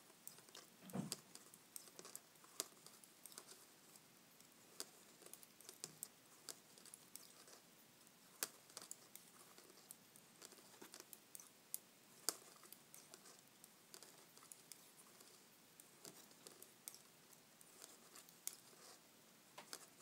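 Faint, irregular clicking and tapping of metal addi Lace Click knitting needles as stitches are knitted one after another.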